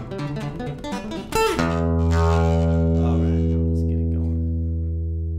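Background music: a quick run of notes, then a long held chord that slowly fades.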